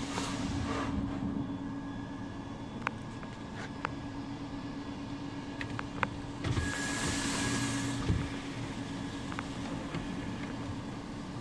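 Automatic tunnel car wash heard from inside the car: a steady machinery hum under water spraying and soft cloth strips slapping and sweeping over the windshield, with a few sharp clicks. About six and a half seconds in a louder hiss of spray rushes over the car for a second and a half, ending in a thud.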